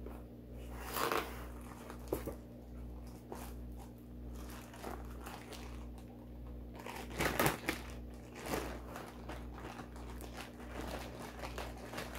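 Clear plastic bag crinkling and rustling as hands open it and work paperwork out of it: a string of irregular crackles, loudest about seven seconds in. A steady low hum runs underneath.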